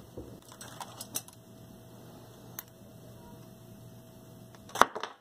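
Small scattered clicks and ticks of hands handling a thin wire and a plastic crimp connector, with one sharp, much louder click near the end.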